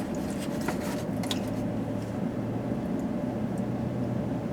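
Steady low hum of a car interior with the engine running, with a few faint light clicks over it.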